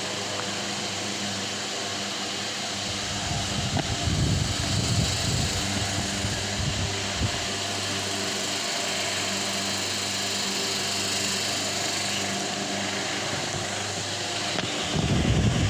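Delta Gold 50 cm wall fan running steadily: a motor hum under an even rush of air, with low rumbling bursts about four seconds in and near the end.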